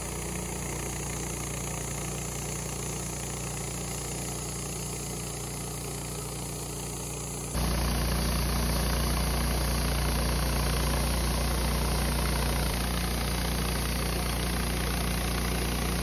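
Wood-Mizer LT15 portable band sawmill running steadily, its band blade sawing lengthwise through a sugar pine cant. The sound steps up in level abruptly about halfway through and stays louder.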